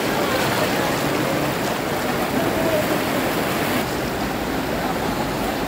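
Fast-flowing floodwater rushing and churning down a flooded street: a steady, unbroken rush of water. Faint voices can be heard behind it.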